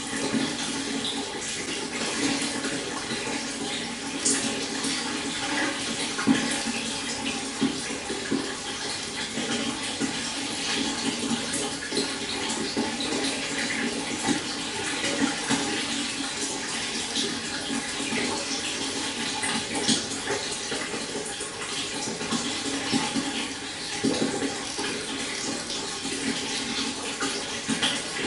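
Shallow stream water flowing and burbling steadily, with many small splashes and trickles over stones.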